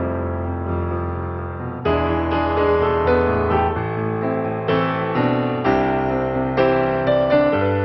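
Background music: a piano playing a slow melody over sustained chords, with a fuller, louder passage starting about two seconds in.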